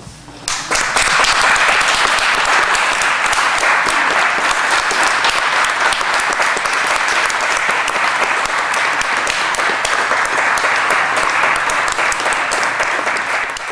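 Small audience applauding, starting about half a second in and holding steady throughout.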